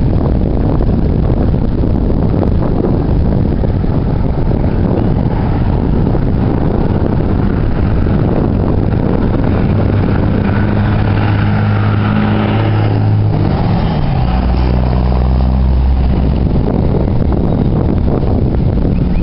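Wind buffeting the microphone. In the middle an engine passes by: its hum builds and drops in pitch about thirteen seconds in, then fades.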